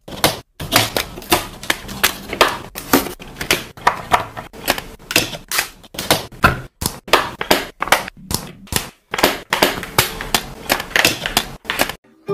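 Thin laser-cut plywood puzzle pieces clicking and tapping as they are slotted and pressed together by hand. It is an irregular run of sharp clicks, several a second, that stops near the end.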